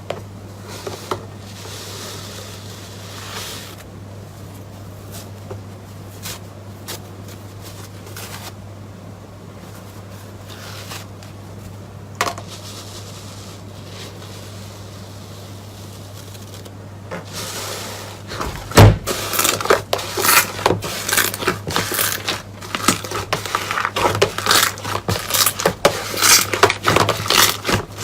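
Close-miked slime or soap being handled, with a faint steady hum underneath. At first there are scattered soft clicks and rustles. About two-thirds through comes a loud knock, then a dense run of crisp crackling and crunching.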